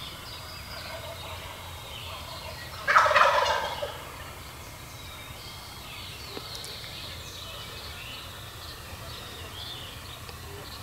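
A wild turkey gobbler gobbles once about three seconds in, a loud, close, rattling call lasting about a second.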